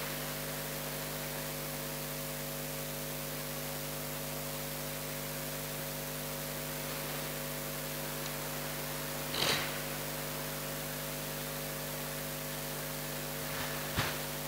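Steady electrical mains hum with a hiss, from the microphone and sound system while no one speaks. A short faint noise comes about nine and a half seconds in.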